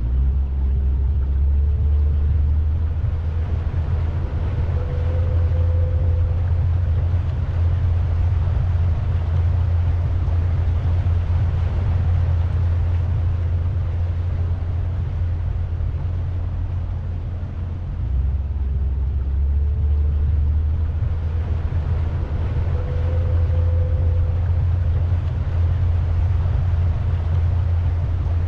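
Pontoon boat's motor running steadily underway: a continuous low rumble, with a faint higher tone coming and going.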